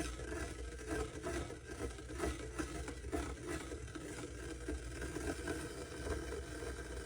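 Stainless steel stovetop percolator heating toward a boil: a steady low hum with irregular faint ticking and crackling.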